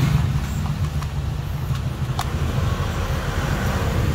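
A motor vehicle's engine running nearby: a steady low rumble, with a few faint clicks in the first half.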